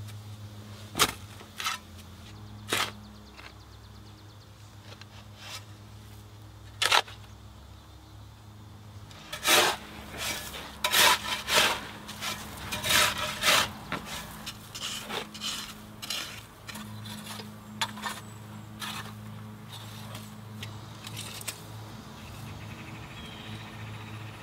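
Hand digging tool chopping and scraping into soil and turf: a few scattered sharp strikes, then a quick run of them in the middle. A steady low hum runs underneath.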